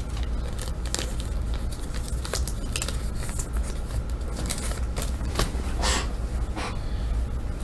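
Trading cards and foil pack wrappers being handled: scattered short clicks and rustles, a longer rustle about six seconds in, over a steady low hum.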